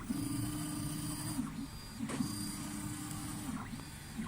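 FDM 3D printer's stepper motors whining in pitched runs about a second and a half long, with short breaks between moves, as the print head lays down the base layer of a print.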